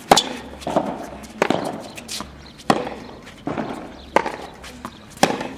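Tennis rally: a string of sharp pocks as tennis balls are struck by rackets and bounce on the court, the strongest hits coming about every second and a half, with lighter ones in between.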